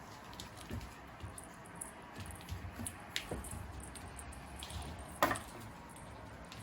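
Puppies playing: soft scuffling and mouthing noises with scattered light clicks, and a sharper knock about five seconds in.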